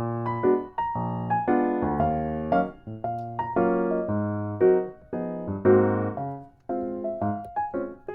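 Background music: a light tune of short, separate notes in a steady rhythm.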